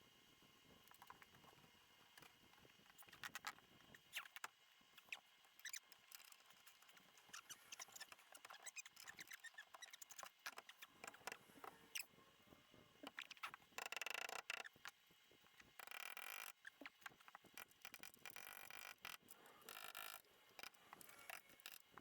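Faint clicks, taps and light scrapes of hand work on car suspension parts and bolts, with a few short rasping bursts near the middle and toward the end.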